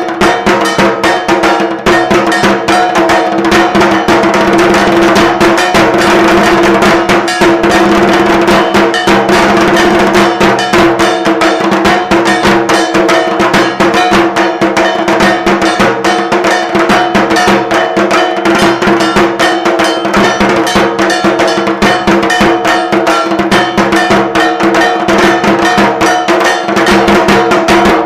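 Metal bells struck rapidly and without pause, with drum strokes, making a dense clanging over a steady ringing tone, the ritual percussion of a Kali Puja worship.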